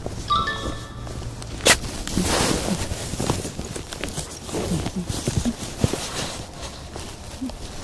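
Footsteps with jacket fabric rustling and rubbing close against the microphone, and irregular soft knocks throughout. There is a sharp click a little under two seconds in, and a brief high chirp about half a second in.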